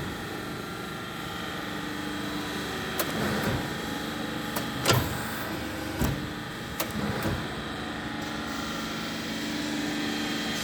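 Daesung sheet-metal shear running on test: a steady motor hum with several short, sharp knocks from the machine over the middle few seconds.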